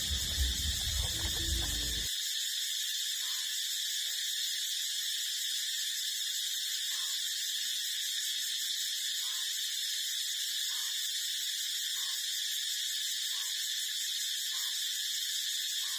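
A steady high-pitched tone that holds unchanged throughout, with faint soft ticks about every second and a half.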